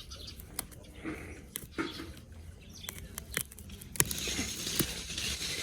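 Grass and roots being pulled out of the soil by hand: rustling with scattered snaps and clicks, growing rougher and noisier about four seconds in.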